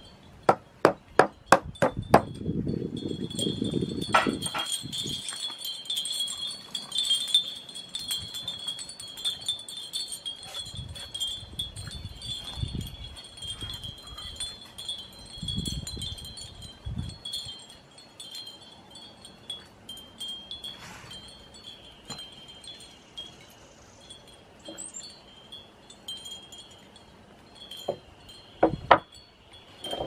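Hammer driving a nail into old cedar shingle boards: about six quick blows in the first two seconds, then two more near the end. Wind chimes tinkle steadily in the background.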